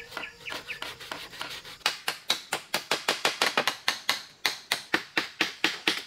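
Rapid, even tapping: a run of sharp clicks or knocks, about four a second.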